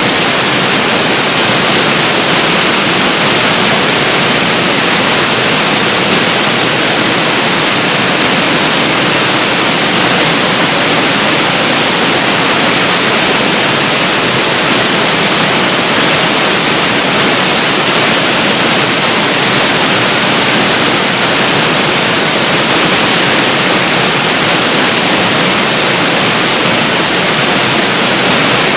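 Water pouring down a large artificial waterfall in a steady, loud rush.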